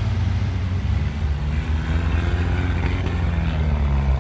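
UAZ-469 off-road jeep's engine running under load, its pitch rising for a couple of seconds as it revs, then dropping near the end.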